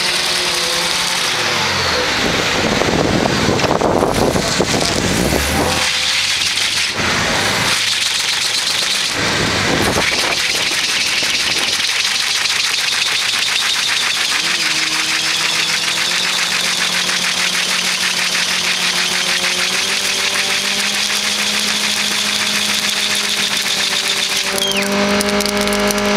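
A car doing a burnout: the engine is held at high revs while a spinning rear tyre squeals on concrete. The engine note steps up in pitch about halfway through and again near the end.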